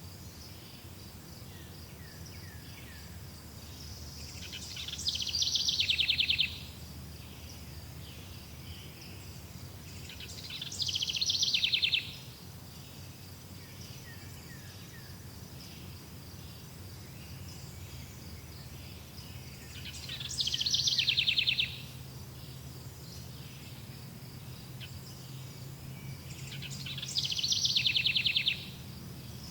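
Bird song: four loud, rapid trills, each lasting about a second and a half, over a steady high-pitched insect trill.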